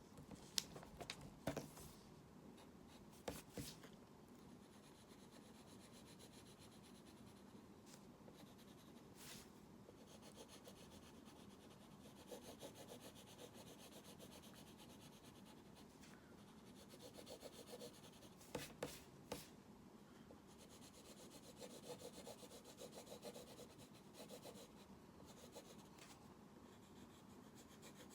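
Faint scratching of a drawing tool making strokes, in several short runs, with a few sharp taps or clicks between them.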